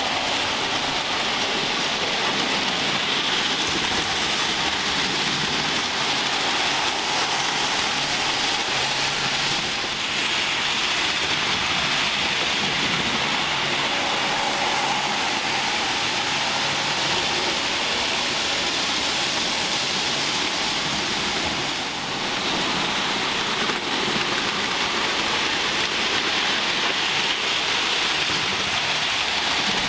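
Model trains running on a layout: a steady noise of wheels on the rails and small electric motors, with a faint whine at times.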